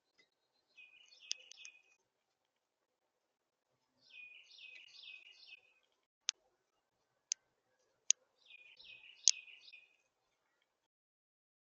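A songbird singing three short phrases, each a quick run of repeated down-slurred whistled notes. Five sharp single clicks, the loudest sounds, fall during the song and in the gap before the last phrase.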